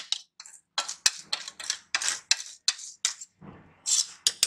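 Metal spoon scraping and knocking against a steel bowl and tin as thick batter is emptied out: a quick, uneven run of clinks and scrapes, about three a second.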